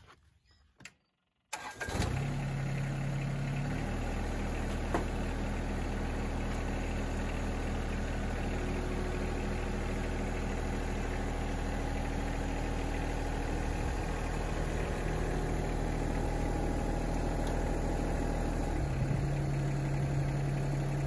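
Yanmar SA324 compact tractor's three-cylinder diesel engine running steadily; it comes in suddenly after a moment of near silence, and its note shifts slightly about four seconds in and again near the end as the tractor works the loader off its brackets and backs away.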